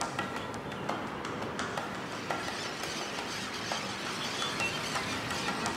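Outdoor ambience: a steady hiss of noise with irregular light clicks and knocks, and a faint short chirp about four and a half seconds in.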